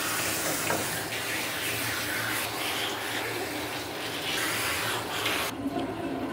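Water spraying from a handheld grooming-tub sprayer onto a lathered small dog and the stainless steel tub: a steady hiss that cuts off suddenly about five and a half seconds in.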